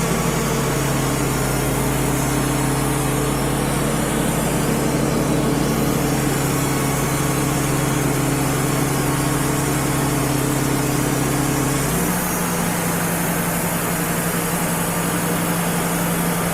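Wood-Mizer LT35 HD portable sawmill's engine running steadily, its pitch stepping up about twelve seconds in.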